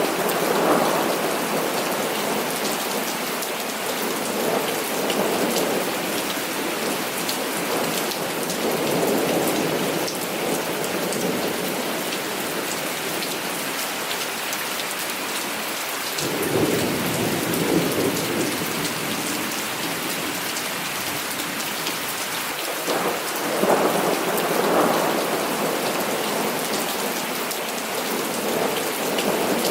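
Heavy rain falling steadily, with thunder rumbling in repeated rolls; the strongest rolls come about a quarter of the way in, just past halfway, and about four-fifths of the way through.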